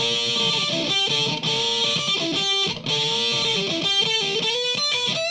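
Distorted electric guitar lead, an Epiphone Ghosthorse on its bridge pickup through a Marshall Origin 50 valve head, playing a fast run of single notes with bends.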